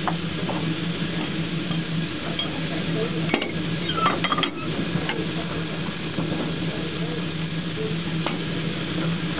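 Metal clinks and clanks of a railway screw coupling being lifted onto a drawhook and handled, with a cluster of sharp clinks about three to four and a half seconds in and a few single clicks after. A steady low hum runs underneath.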